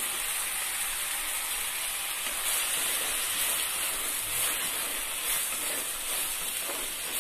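Chopped onion and tomato frying in oil in a clay kadai, a steady sizzle, stirred with a wooden spatula.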